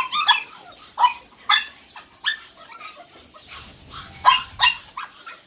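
Caged kennel dogs barking: a run of short, sharp, high-pitched barks and yips at uneven intervals, about eight in all.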